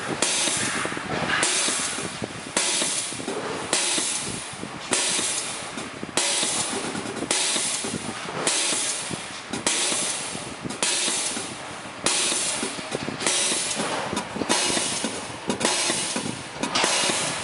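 Diesel fuel injector on a nozzle test bench spraying into the test chamber in repeated hissing bursts, a little under one a second, each starting sharply and trailing off. This is the nozzle popping open at its set opening pressure of about 3,780 psi.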